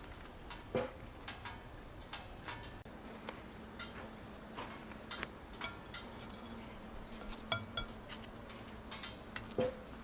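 Cutlery and dishes clinking: irregular sharp clicks and ticks, with one metallic clink that rings briefly about seven and a half seconds in.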